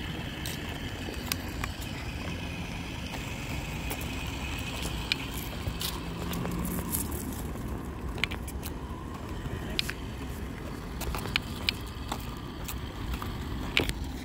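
A toy RC car's small electric motor whining as it drives over a rubber playground surface, its pitch wavering as it goes. Scattered sharp clicks and ticks, a few louder ones near the end.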